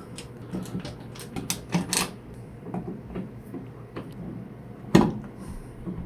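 Small irregular clicks and scrapes of a screwdriver driving the single screw of a light-switch cover plate, with one sharper click about five seconds in.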